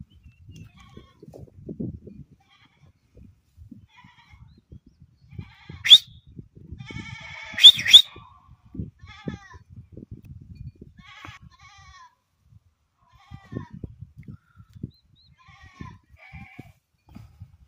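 Beetal buck goat bleating, loudest in a few calls about six to eight seconds in, with fainter short calls later. Soft rustling and knocking of dry fodder runs underneath.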